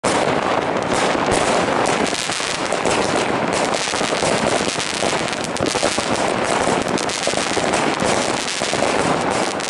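Many New Year's Eve fireworks going off at once: a dense, unbroken crackle of bangs and pops with no pause.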